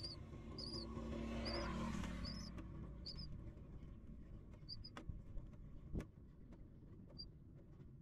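Nestling songbirds begging with short, high peeps, about two a second through the first three seconds, then only a couple more as they settle. A low rumble swells and fades in the first couple of seconds, and there are two sharp clicks about five and six seconds in.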